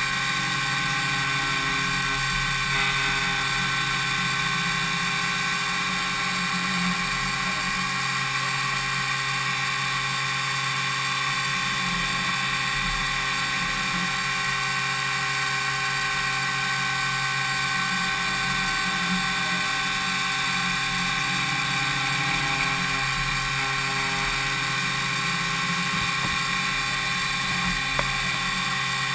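A DMU 70V 5-axis milling machine's spindle cutting an impeller blade: a steady drill-like whine of several held tones over a low hum, with no break.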